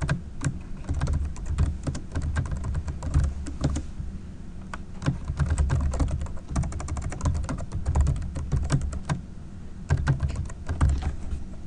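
Typing on a computer keyboard: quick, irregular runs of key clicks as lines of code are entered, over a steady low hum.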